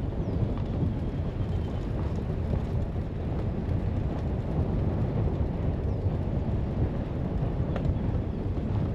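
Steady low rumble of a car on the move: road and wind noise on the camera's microphone, with a faint click near the end.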